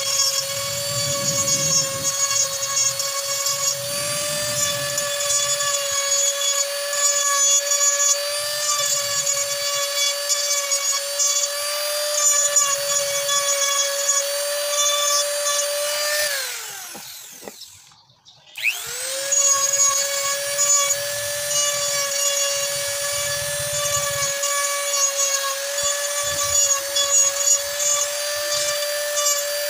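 Handheld rotary tool running at a steady high whine while its bit grinds into hard ebony wood. About two-thirds of the way through it is switched off and winds down, then about a second later is switched back on and winds up to speed.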